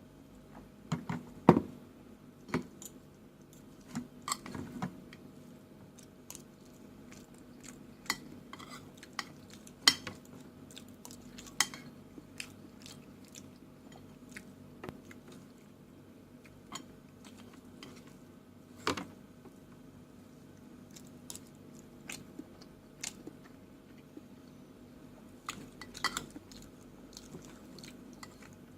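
Cutlery clinking and scraping on a plate, with chewing between. Scattered sharp clinks come throughout, the loudest about a second and a half in, at about ten seconds and at about nineteen seconds, over a faint steady hum.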